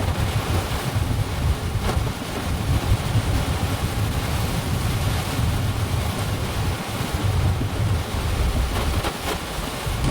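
Strong gusting typhoon wind buffeting the microphone: a loud rushing noise with an uneven low rumble that rises and falls with the gusts.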